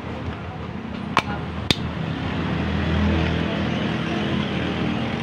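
Two sharp metallic clinks about half a second apart, from hand work on parts, over a steady low rumble of vehicle and traffic noise that swells midway.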